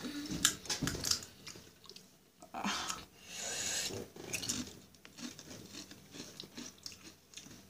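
Doritos tortilla chips crunched and chewed with the mouth close to the microphone, in many short crackles. A breathy rush of air comes through about two and a half seconds in, as the chewer breathes out against the chip's burning heat.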